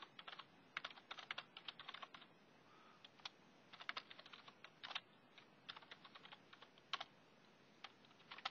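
Faint computer keyboard typing: short runs of keystrokes with brief pauses between them.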